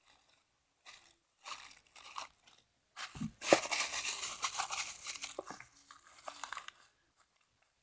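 Paper and tape crinkling as a paper squishy stuffed with crumpled paper is squeezed and handled: a few short crinkles, then a longer stretch of crinkling from about three seconds in.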